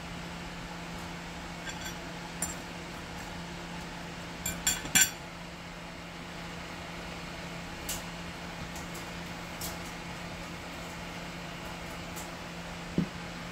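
Steady low hum in a small room, with a few sharp clinks of crockery and utensils being handled. The loudest is a quick run of three clinks about five seconds in, and a bowl is set down on the table with a knock near the end.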